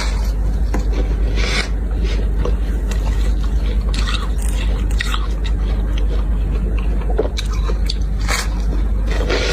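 Bites of fluffy humidifier freezer frost being crunched and chewed close to the microphone, a crunch every second or two, over a steady low hum.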